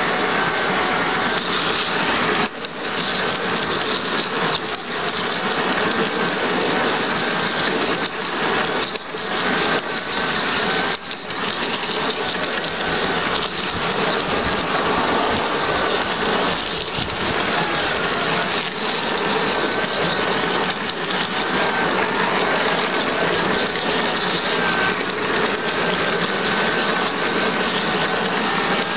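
Garden-scale model locomotive running, heard from on board: a faint steady electric-motor whine over the continuous noise of its wheels rolling on the rails, dipping briefly a few times.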